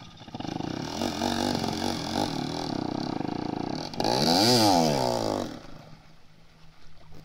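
Small motorcycle engine revving as it rides into a stream, loudest about four seconds in as it pushes through the water, its pitch rising and falling, with water spraying. About a second later the engine cuts off suddenly: it has drowned in the water.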